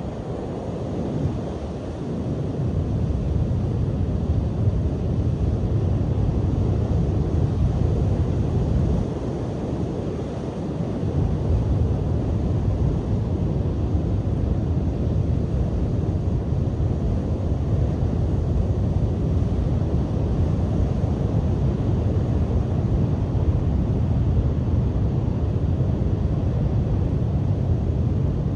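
Strong, gusty sea wind rumbling on the microphone over breaking surf. It eases about nine seconds in, then builds again.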